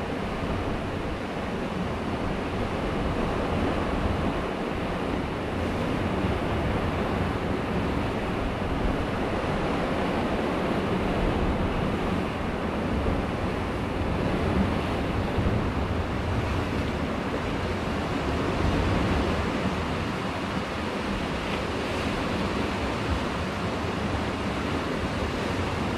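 Ocean surf washing and breaking among the rocks of a rocky shore, a steady rush that swells and eases.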